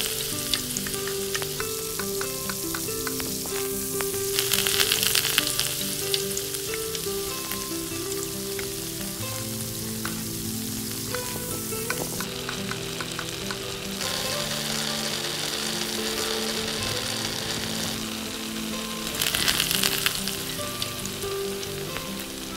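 Hot oil sizzling in a miniature steel wok as chopped ingredients fry, with small clicks from a tiny metal spatula stirring in the pan. The sizzle swells louder about four seconds in and again near the end.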